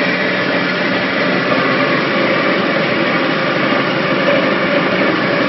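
75 kW coconut shell crusher running steadily: a loud, even machine noise with a faint high whine.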